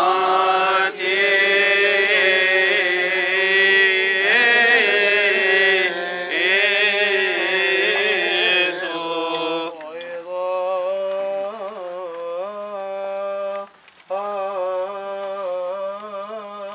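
Coptic Orthodox liturgical chant: voices singing a slow, melismatic hymn, long held notes that wind up and down in pitch. About ten seconds in it thins out and gets quieter, with a brief break near the end.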